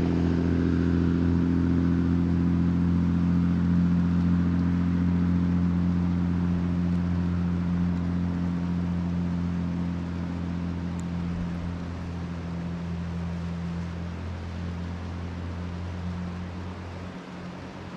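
A motor vehicle's engine hum, steady in pitch and slowly fading away, over a steady hiss of rain and river water.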